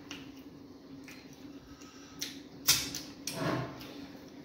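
Mukbang eating sounds: mouth smacks and chewing as fufu with vegetable soup is eaten by hand, with two sharp smacks a little past the middle, the second the loudest.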